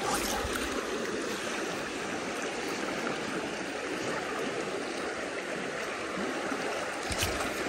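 Fast-flowing river current rushing over riffles: a steady rush of water close by.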